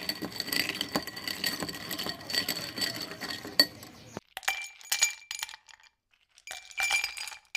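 Ice cubes clinking against a glass, a dense rattle with the glass ringing for about four seconds, then two shorter bursts of clinks.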